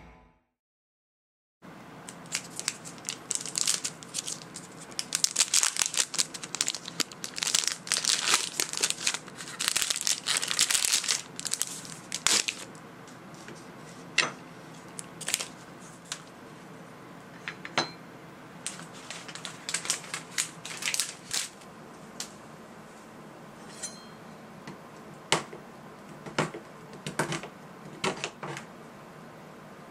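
Dark chocolate bar handled on a wooden cutting board: a long stretch of dense crinkling and tearing like its wrapper being opened, then a knife chopping through the chocolate with scattered sharp cracks.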